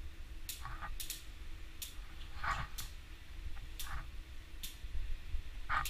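A quilted couch cover rustling as it is pulled and handled, with scattered sharp clicks and a few short soft puffs.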